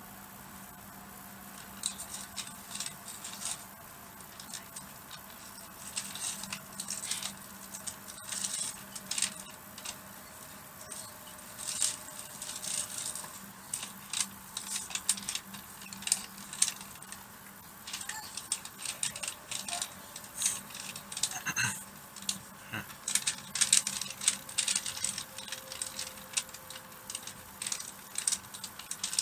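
Shinkansen cabin sound as the train moves along a station platform: a steady low hum with a faint whine that slowly drops in pitch, and light rattling clicks throughout, busier in the second half.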